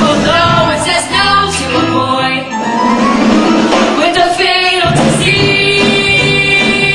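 Young performers singing a musical-theatre song over instrumental accompaniment.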